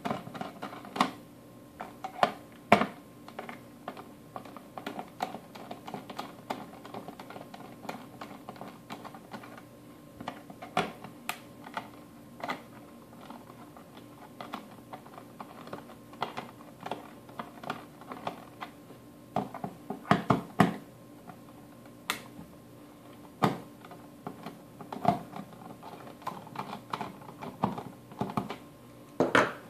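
Small precision screwdriver unscrewing the corner screws of a Sipura 3000 VoIP adapter's case: irregular light clicks and ticks of the bit turning in the screw heads and knocking against the case, with louder clusters of clicks about two-thirds of the way in and near the end.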